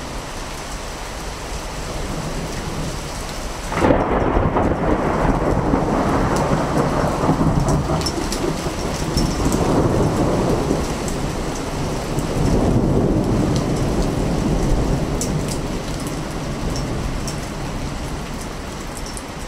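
Thunder over steady rain: a loud rumble breaks in suddenly about four seconds in and rolls on in swells for about ten seconds before easing back to the rain.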